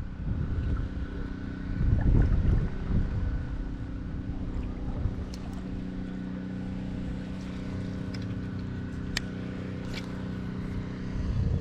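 A steady motor hum, with wind rumbling on the microphone early on and a few faint sharp clicks.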